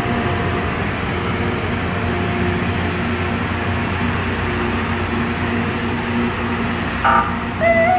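Loram rail grinder's diesel engines running steadily as it pulls away along the track. About seven seconds in, a loud horn-like tone starts: a short blast, then a held tone that steps up in pitch.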